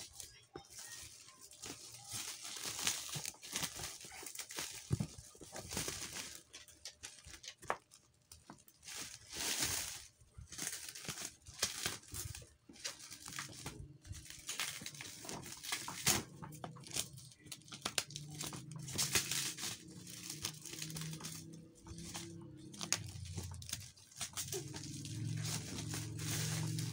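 Shiny black plastic wrapping crinkling and rustling as it is pulled off a cardboard box, with scrapes and knocks of the box being handled.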